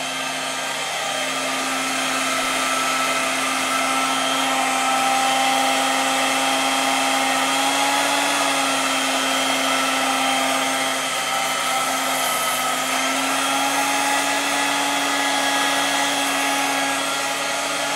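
1970 Iona R-19 hand mixer running on its high speed with the beaters spinning free, unloaded: a steady motor hum and whir that wavers slightly in pitch a couple of times.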